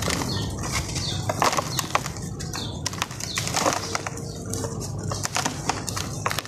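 Dry sand-cement block crunching and crumbling in the hands, with loose grit pouring and rustling down into a plastic tub in bursts of irregular crackles.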